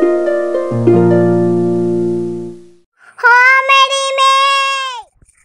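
Intro jingle: a harp-like plucked arpeggio over a deep bass note that dies away, then a single held higher note that bends down as it ends about five seconds in.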